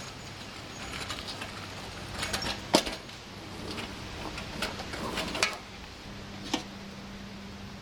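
Handling noises: scattered knocks and clicks, one sharp knock about three seconds in and a little cluster a couple of seconds later, over a steady low electrical hum.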